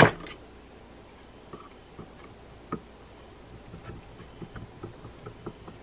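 Small metal clicks and ticks of a screwdriver seating and turning the two hold-down screws into a Penn 105C spinning reel's metal housing: one sharp click at the start, then light, scattered ticks.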